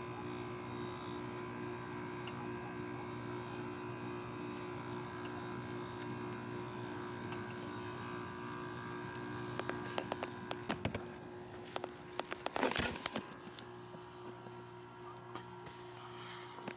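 General Electric window air conditioner running just after its compressor has started: a steady hum with several constant tones. About ten seconds in, a cluster of sharp clicks and a short rustling burst break over the hum.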